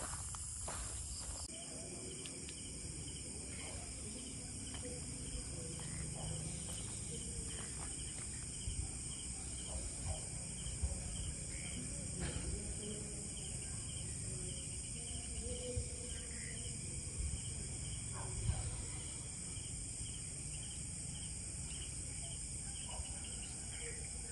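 Night chorus of crickets and other insects: a steady high-pitched trill, with one insect chirping about twice a second, over a low rumble and a few faint clicks.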